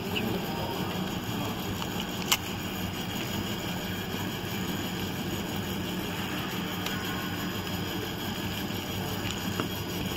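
Flyer bag converting machine running steadily with a low hum, with a sharp click about two seconds in.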